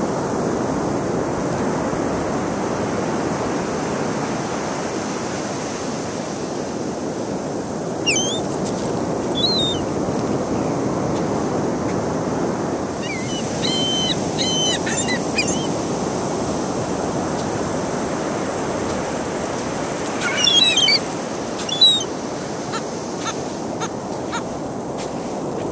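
Ocean surf washing steadily, with seagulls calling over it: a few short cries about eight and nine seconds in, a cluster of calls midway, and the loudest cries a little past twenty seconds in.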